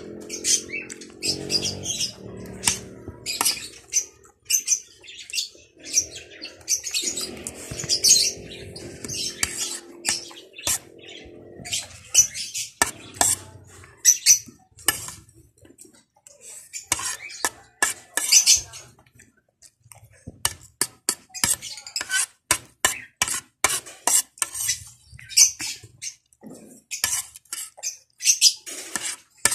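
Close-up eating sounds: irregular wet chewing and lip-smacking clicks, with a metal spoon clinking now and then. A low hum sits underneath for about the first half.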